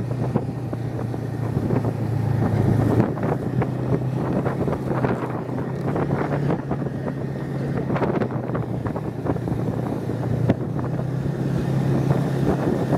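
Snowmobile engine running steadily while the sled travels along a snowy trail, heard from the rider's seat, with wind on the microphone.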